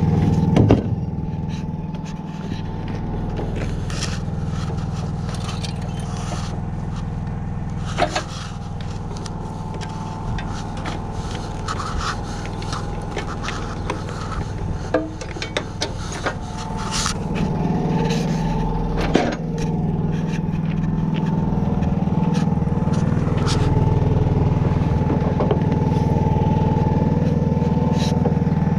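A motor or engine running steadily with a constant hum, while scattered scrapes, clicks and knocks of hand work sound over it; the hum grows a little louder in the second half.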